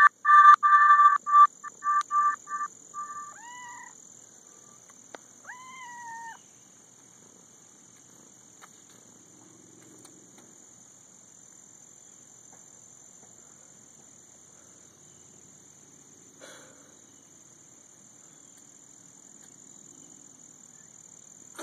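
A kitten meowing twice, short rising calls about three and a half and six seconds in, after a loud run of rapid, high whistled chirps. The rest is quiet apart from a faint steady high-pitched hiss.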